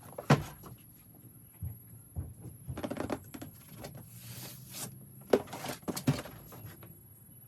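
Packaging of a Gundam model kit being handled and opened by hand: scattered sharp taps and knocks, with a brief rustling scrape about four to five seconds in.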